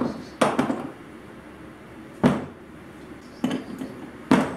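Metal hand tools, a hammer, screwdrivers and a chain among them, being set down on a wooden workbench: about five separate clunks and clatters at uneven intervals, some in quick pairs.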